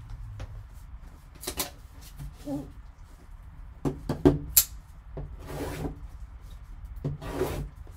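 A shrink-wrapped card box being handled in gloved hands: the cellophane wrap crinkles and rubs in short bursts as the box is turned over, with a couple of sharp clicks about four seconds in.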